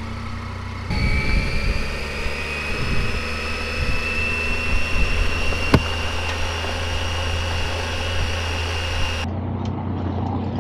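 Triumph Tiger 800's three-cylinder engine idling, then the motorcycle pulling away and riding on gravel, with rough tyre and road noise over the engine hum. A thin whine rises slowly in pitch as it gathers speed, and there is a single sharp click about halfway through.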